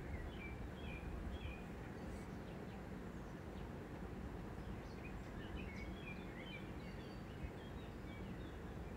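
Steady background hiss with small birds chirping faintly, a few short chirps about a second in and a cluster again around six to seven seconds in.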